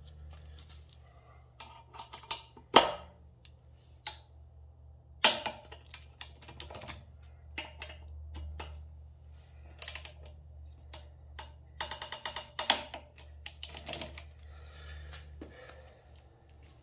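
Torque wrench ratcheting and clicking as the front brake caliper bolts are tightened to 35 foot-pounds. There are scattered single clicks, a few sharper than the rest, and short runs of quick clicks about ten and twelve seconds in.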